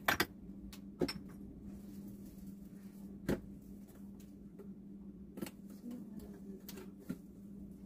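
Steady low kitchen hum with a few short, sharp clicks and knocks scattered through it, the loudest near the start and about three seconds in.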